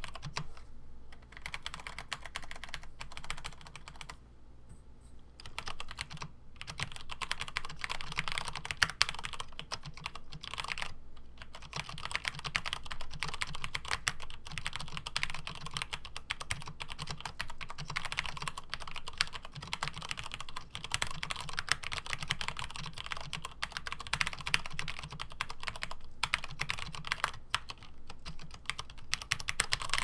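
Continuous fast typing on a Compaq-branded Cherry G80-11800 mechanical keyboard with tactile MX Brown switches and thick PBT keycaps: a dense run of key clacks with a few short breaks and a longer lull about four seconds in.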